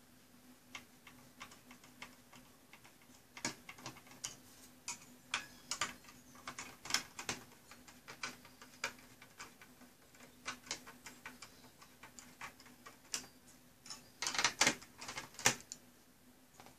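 Screwdriver turning the heatsink screws on a server motherboard: irregular light metal clicks and ticks. A denser, louder run of clicks comes near the end as the metal heatsink is handled.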